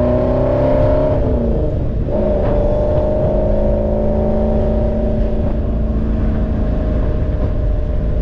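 1970 Ford Mustang's 428 big-block V8 pulling hard under acceleration at highway speed. The pitch climbs, drops at a gear change about two seconds in, then climbs slowly again, with wind and road noise from the open top.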